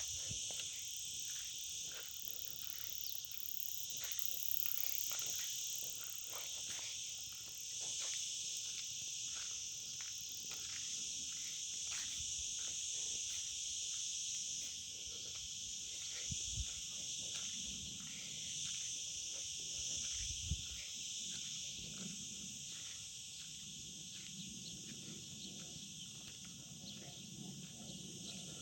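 Steady outdoor insect chorus, a continuous high shrill trill of crickets or similar insects, with scattered small clicks and rustles over it.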